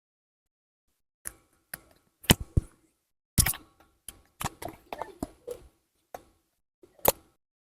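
Irregular sharp clicks and taps of small hard parts and tools being handled during a smartphone teardown, about fifteen in all, bunched together in the middle.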